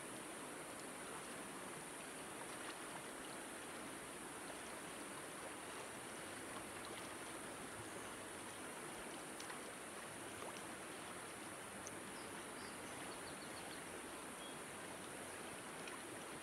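Steady flow of a shallow mountain river, an even rush of water.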